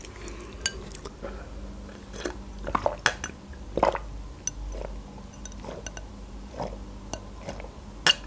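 Quiet mouth sounds of someone drinking the last of the milk from a glass bowl: scattered swallows and small wet clicks, with a few sharper clicks, the loudest near the end.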